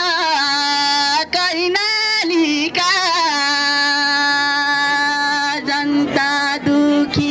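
A young man singing a Nepali political protest song into a microphone. He draws out wavering, melismatic phrases, then holds one long steady note for a few seconds before singing on.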